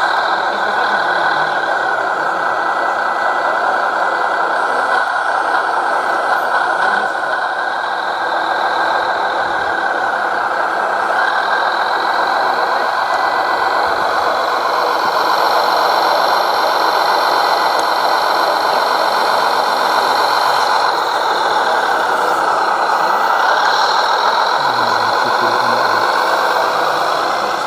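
Radio-controlled model truck's electric drive motor and gearbox whining steadily. The pitch dips and comes back up a couple of times as the model slows and speeds up.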